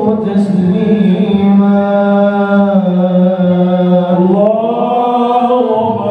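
A young man's voice singing sholawat, an Islamic devotional song praising the Prophet, into a microphone. He draws out long held notes with slow ornamented turns, and the melody rises a little past the middle.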